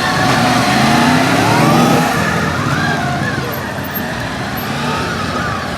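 Several police motorcycles running together, their engines' pitch rising and falling as they are throttled through a drill.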